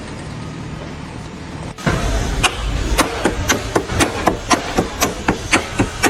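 A steady low hum, then a rapid run of sharp, regular knocks, about four strikes a second, starting about two seconds in.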